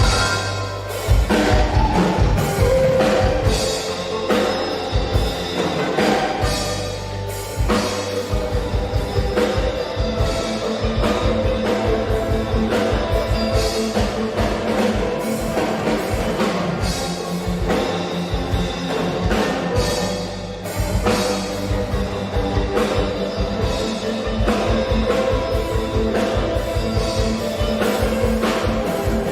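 Instrumental band music: a drum kit keeps a steady, busy beat under bass, guitar and plucked sasando (Rote palm-leaf tube zither).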